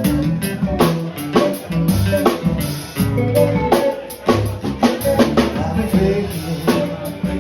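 Band music with a drum kit keeping a steady beat over bass and guitar, an instrumental passage without singing.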